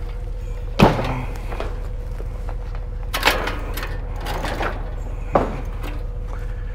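A bicycle being loaded onto a wooden-decked utility trailer, its metal frame and wheels knocking against the trailer and the other bikes: three sharp knocks, the loudest about a second in, the others around three and five and a half seconds in. A steady low hum runs underneath.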